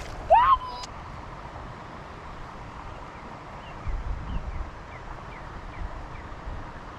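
Wind buffeting the microphone over a steady outdoor background. A short rising vocal exclamation comes just after the start, and faint short falling chirps repeat about every half second through the middle.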